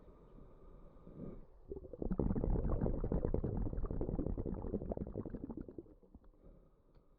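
Scuba diver exhaling through a regulator underwater: about two seconds in, a dense burst of bubbling starts, lasts about four seconds, then fades away.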